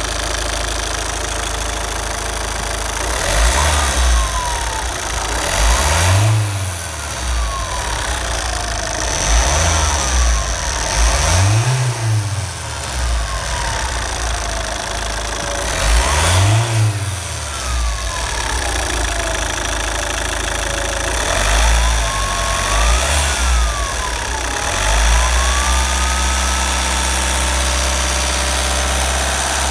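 Opel Zafira 1.9 four-cylinder turbodiesel engine revved up from idle several times. A high turbocharger whistle falls in pitch as the revs drop after each blip.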